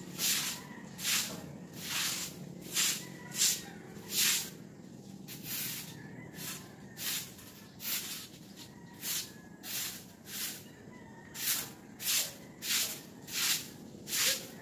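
A stiff broom swept over wet concrete, pushing water and grit in quick swishes about twice a second, with a short pause a little before the middle.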